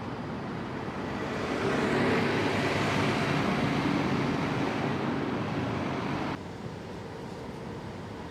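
Street traffic with a vehicle passing close, growing louder about a second and a half in and then cutting off abruptly to a quieter steady traffic hum near the end.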